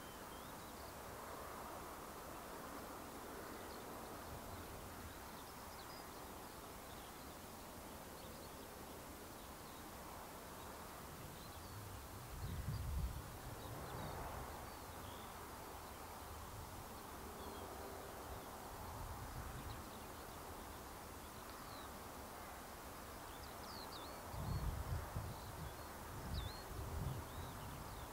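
Outdoor country ambience: small birds chirping now and then over a steady background hiss, with low gusts of wind buffeting the microphone about twelve seconds in and again near the end.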